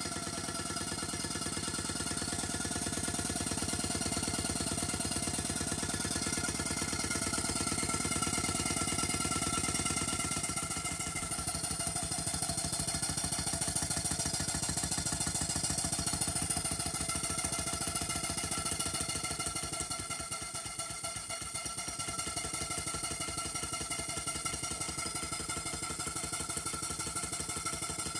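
Model portable steam engine running on compressed air: the cylinder exhausts in a rapid, even beat as the flywheel turns. The beat thins out about ten seconds in and dips briefly around twenty seconds.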